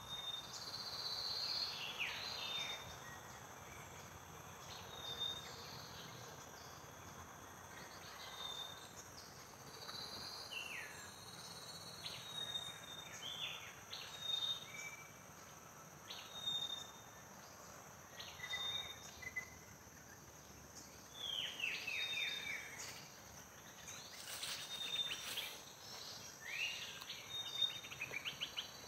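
Birds chirping, with repeated short high notes and quick falling whistles, over a steady high buzz of insects.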